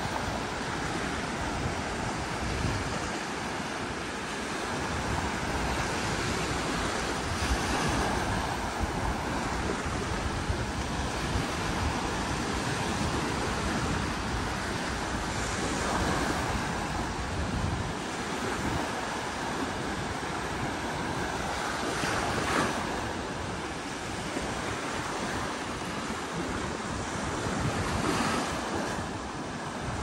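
Sea waves washing onto the beach, the surf swelling now and then, with wind buffeting the microphone.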